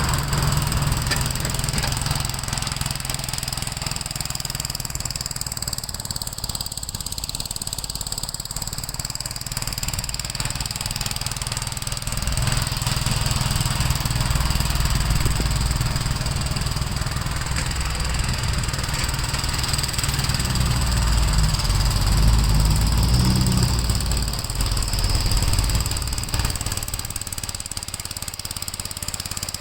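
Gravely L8 walk-behind tractor's single-cylinder engine running steadily while plowing snow. Its low note swells through a long middle stretch, then eases near the end.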